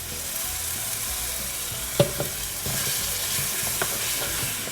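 Onion and ginger paste sizzling in oil in a pan while a spoon stirs and scrapes it, with one sharp knock of the spoon against the pan about two seconds in.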